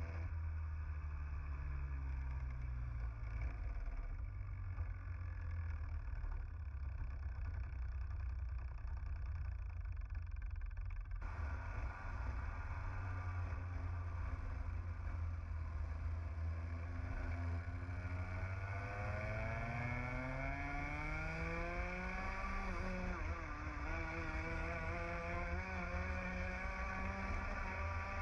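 Onboard sound of a TAG kart's 125cc two-stroke engine at racing speed. Its revs fall over the first few seconds, then after a cut about eleven seconds in they climb steadily as the kart accelerates, dip briefly, climb again and drop near the end.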